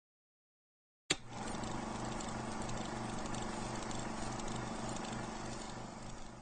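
Film projector sound effect: a click about a second in, then a steady mechanical whirr with a fast, even flutter, fading a little near the end.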